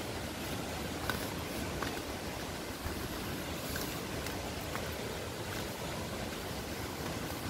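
Steady rushing of water from a nearby mountain stream or waterfall, with a few faint footsteps on the stone path.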